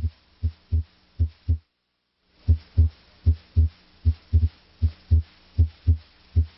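Normal human heart sounds heard through a stethoscope's diaphragm over the aortic area: a regular lub-dub, S1 and S2 in pairs at about 75 beats a minute. Sound drops out briefly a little over a second and a half in, then the beats resume.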